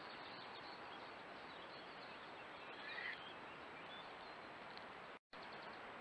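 Steady hiss of a trail camera's microphone with faint outdoor ambience and faint bird chirps; a brief, slightly louder sound about three seconds in, and a short dropout near the end.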